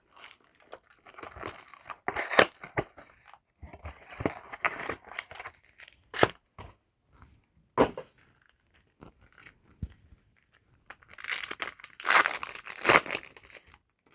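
Foil wrapper of a Yu-Gi-Oh! booster pack being crinkled and torn open, with the cards shuffled out, in irregular bursts of rustling and sharp snaps and a longer stretch of tearing near the end.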